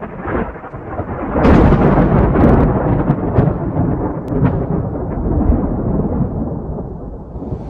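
Thunder-like rumble used as an intro sound effect, swelling about a second and a half in with a few sharp crackles, then slowly easing off near the end.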